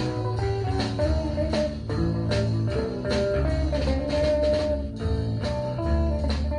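Rock band recording played from a vinyl record: guitar over bass and drums keeping a steady beat.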